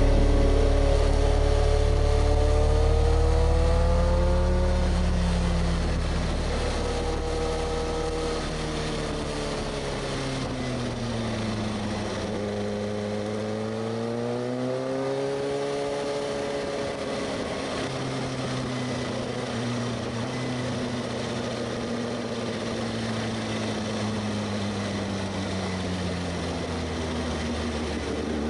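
Kawasaki ZX-6R 636's inline-four engine running under way, its note rising and falling slowly several times with the throttle over a steady rushing noise; it is louder, with a deep rumble, in the first few seconds.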